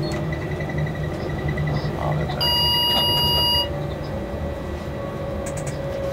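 Locomotive cab interior: the steady hum and rumble of the electric locomotive running, with a single electronic warning beep from the cab equipment about two and a half seconds in, lasting a little over a second.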